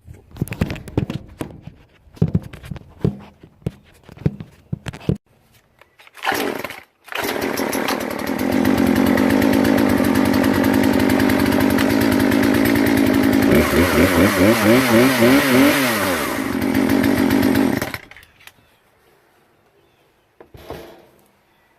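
Poulan Pro two-stroke chainsaw being pull-started: several short pull-cord sounds, then the engine catches about seven seconds in. It runs steadily, its pitch rises and falls in a few revs in the middle, and it cuts off after about ten seconds.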